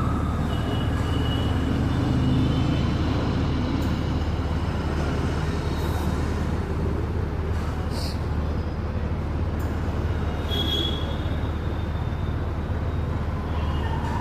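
Steady rush of compressed air from a workshop air line, inflating a newly mounted motorcycle tyre.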